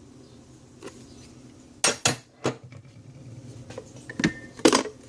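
Metal hand tools, wrenches, clinking against one another as they are handled, with several sharp separate knocks spread through the moment.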